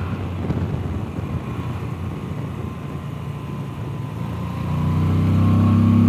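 Moto Guzzi V85 TT's air-cooled transverse V-twin running on the move. The note is rougher and quieter at first, then grows louder and steadier about five seconds in.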